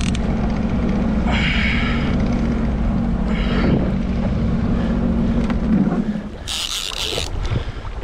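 Jet ski engine running steadily under way, with wind and water rushing on the microphone. About six seconds in the engine hum drops away, and a short loud hiss follows.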